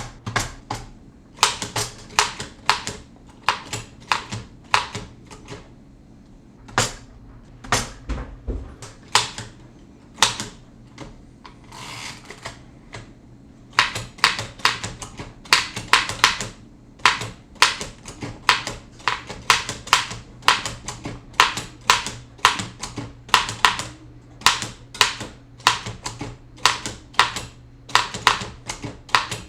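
Oliver No. 9 typewriter being typed on: a run of sharp key strikes, about two to three a second, with a short pause and a brief softer rasp around the middle.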